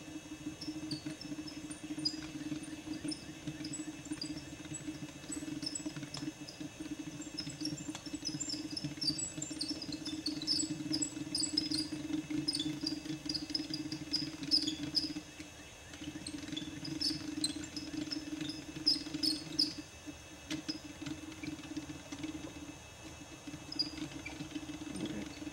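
Small birds chirping in quick runs of short high notes over a steady low hum that breaks off briefly twice.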